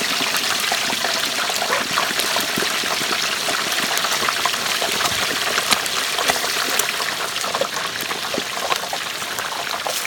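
Turkey frying in a pot of hot oil on a propane turkey fryer: the oil sizzling and bubbling hard, with many sharp crackles and pops scattered through it.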